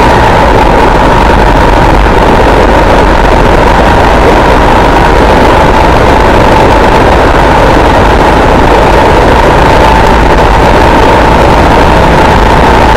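Armstrong MT500 military motorcycle's single-cylinder four-stroke engine running at a steady speed while riding. It is loud and even, with a steady whine running through it.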